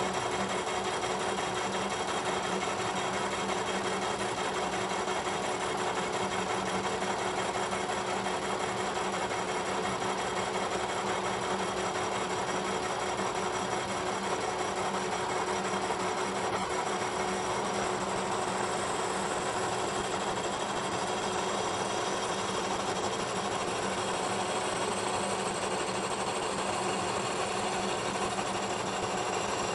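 Kearney & Trecker 2HL milling machine running steadily, its cutter taking a 30-thousandths-deep pass across a cast iron straight edge.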